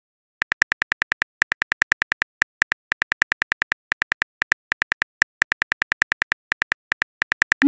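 Simulated phone keyboard typing sounds from a texting-story app: a fast, even run of short clicks, several a second, one per letter. Right at the end a short rising tone starts, the app's message-sent sound.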